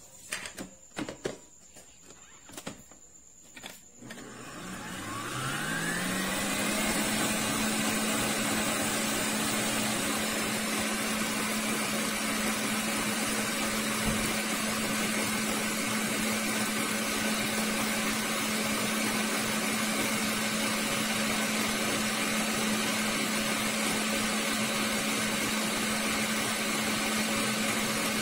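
A few knocks and clicks, then a stand mixer's motor starts about four seconds in, its whine rising as it speeds up, and runs steadily at high speed with its wire whisk beating cream paste in a stainless steel bowl.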